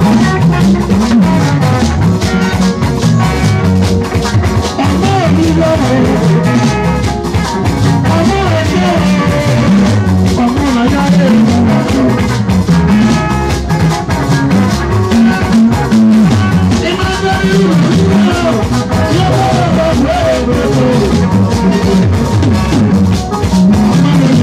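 Live band music: electric guitars, bass guitar and drum kit playing a steady groove, with a man singing into a microphone over it.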